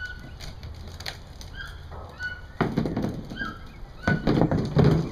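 Plastic balls knocking and scraping on a concrete cage floor as monkeys play with them, in two louder stretches about two and a half and four seconds in. Short high chirps repeat about once a second throughout.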